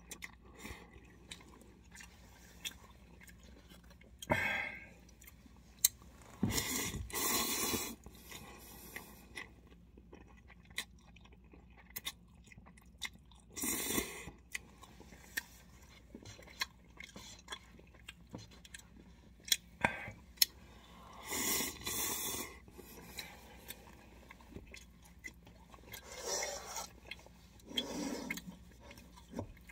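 A person eating instant cup ramen close to the microphone: wet chewing and small mouth clicks throughout, with a loud slurp of noodles every few seconds.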